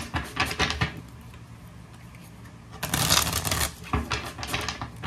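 A deck of tarot cards being shuffled by hand: a rapid fluttering of cards at the start, a short quieter pause, then a second, louder burst of shuffling about three seconds in that trails off in scattered clicks.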